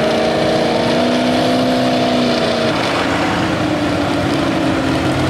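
A 2WD super stock pickup truck's engine under heavy load, pulling a weighted sled. Its pitch climbs slightly and holds, then drops suddenly to a lower, steadier note a little over halfway through.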